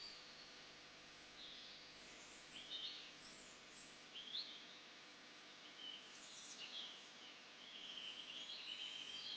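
Small birds chirping faintly in short scattered calls, with a longer stretch of twittering near the end, over a soft steady hiss.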